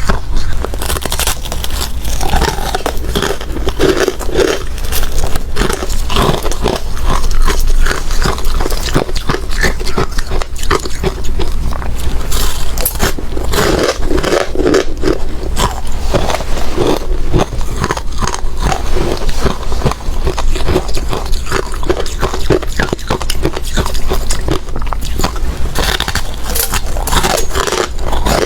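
Hard ice being bitten and chewed close to the microphone: a dense, irregular run of loud crunches and cracks, with scraping sounds between bites.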